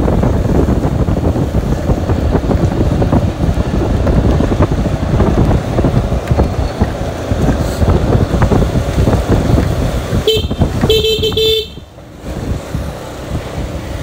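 Wind rumbling on the microphone over street noise, then a vehicle horn sounds twice about ten seconds in: a short toot followed by a slightly longer one.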